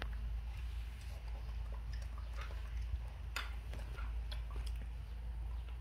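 Two monkeys eating fried rice: scattered small clicks and scrapes of metal spoons against plastic bowls, with chewing and lip-smacking, over a steady low hum.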